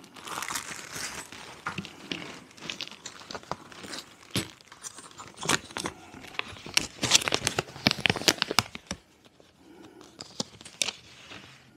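Plastic hardware bag crinkling and paper rustling as the bag is handled and a folded quick start guide is taken out and opened: irregular crackles and sharp clicks, busiest about seven to eight and a half seconds in, then quieter.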